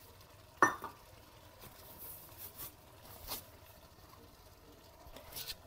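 Light handling noise in a stainless steel pot as a gloved hand sets a hot pepper on top of a stew: a sharp click about half a second in, then a few faint taps and rustles, with another click just after the middle.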